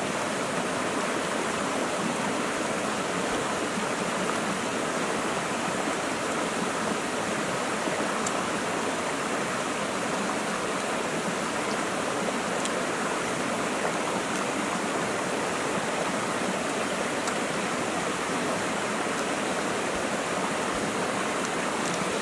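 Shallow rocky stream flowing, a steady even rush of water that does not change.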